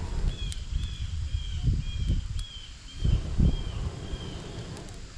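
Breath blown in several puffs onto smouldering tinder and kindling to fan a newly lit campfire into flame, heard as low gusts of air noise. A short high chirp repeats about twice a second behind it.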